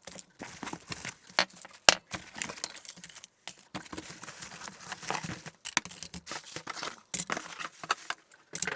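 Joystick kit parts being emptied out of their cardboard box onto a desk: irregular clicks and clatter of small plastic pieces, with rustling of packaging.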